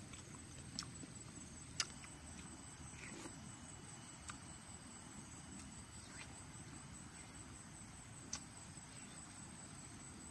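Faint, steady chirring of crickets or other insects, with a few short, sharp clicks over it.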